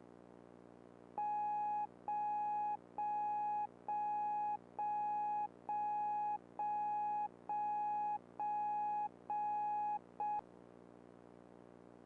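Electronic alert tone beeping about once a second, ten times, each beep a single steady mid-pitched tone just under a second long, ending on a clipped short beep. A faint low hum runs underneath.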